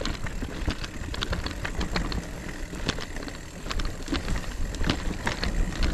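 Mountain bike rolling down a rough trail, with tyres over stones and roots and the bike rattling in a fast, irregular run of clicks and knocks over a steady low rumble.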